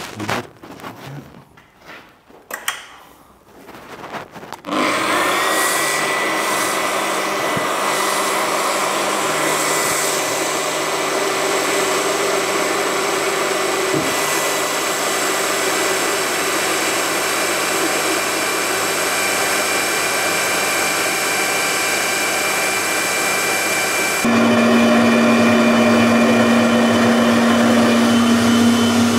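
A few light knocks from setting up. Then, about five seconds in, the electric motor of a magnetic-base drill starts and runs steadily while a pilot drill cuts into the steel plate of a boiler firebox through a centring guide. Near the end the sound steps up louder with a stronger hum.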